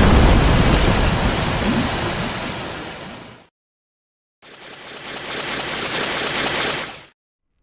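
Rushing water of a flood wave: a loud rush that fades away over about three seconds. After a short silence, a second, quieter rush swells up and stops shortly before the end.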